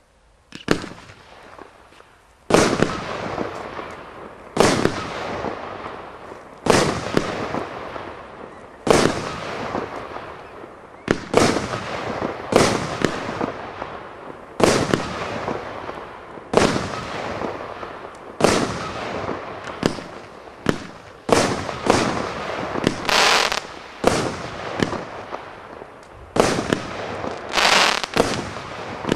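81-shot compound firework battery (cake) firing shot after shot: each tube's launch and loud bang followed by a fading crackle, about one shot every two seconds at first and quicker, closer shots in the second half.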